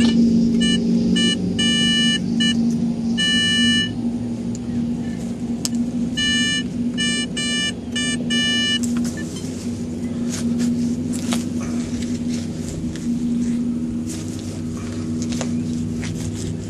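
A steady low engine hum runs underneath throughout. Twice it is broken by a run of quick, chopped electronic beeps: the Teknetics Omega metal detector sounding off. Scattered sharp clicks and scrapes of digging follow in the second half.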